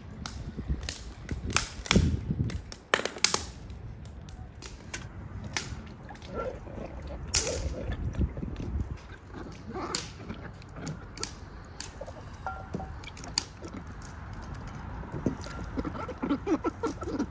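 Wood fire crackling and popping in a steel fire pit, with sharp pops scattered through. Later, hands swish and rub vegetables in a steel bowl of water, with small splashes.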